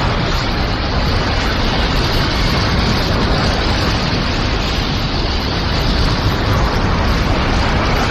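Anime battle sound effect: a continuous, dense explosive rumble with no separate hits, heavy in the low end, holding steady throughout.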